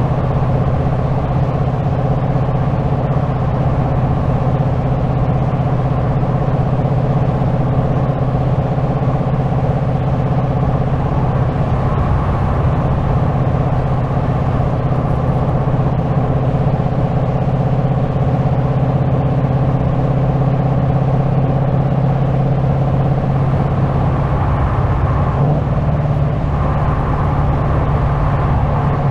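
2025 Ford Mustang GT's 5.0-litre V8 running at steady cruising revs on the road. The engine note steps up slightly near the end.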